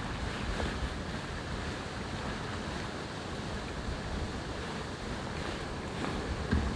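Steady rushing wind noise, with gusts buffeting the microphone in low rumbles near the end.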